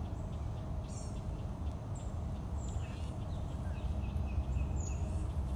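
Outdoor ambience: birds chirping in short high calls, with a run of quick repeated notes about halfway through, over a steady low rumble.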